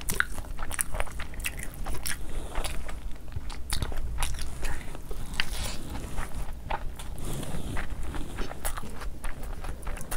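A person eating close to the microphone: chewing and biting, with many irregular sharp clicks and mouth sounds.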